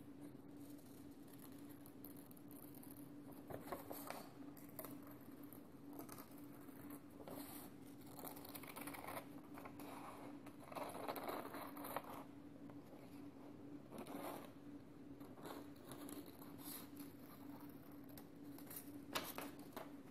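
Scissors cutting around a circle in a sheet of paper: faint, irregular snips with the rasp of the blades through the paper.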